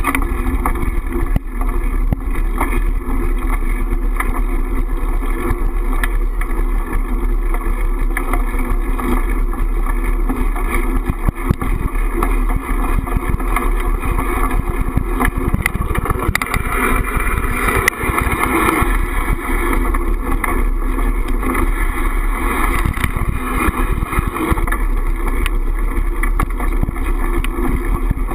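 Steady rumbling wind noise on a handlebar-mounted camera's microphone as a bicycle rolls over asphalt, with frequent small knocks and rattles from the bike and mount over bumps in the road.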